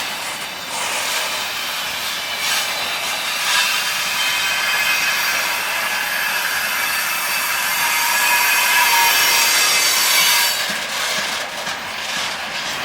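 Freight train wagons rolling past close by: a steady rush and rattle of wheels on rails. In the middle a faint high squeal and creak comes from the wagons' running gear, which the onlooker hears as something on the wagons acting up and creaking a little.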